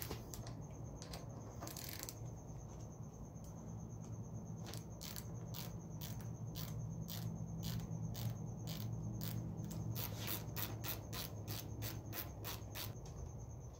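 Sharp metallic clicks of a ratchet wrench unscrewing the brake-line banjo bolt from a motorcycle's front brake master cylinder. The clicks come irregularly at first, then quicken to a few a second in the second half. A steady low hum runs underneath.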